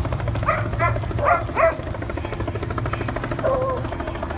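Cattle drive in the street: a steady low drone with a fast flutter, under four short sharp barking calls about a second in and a longer falling call near the end.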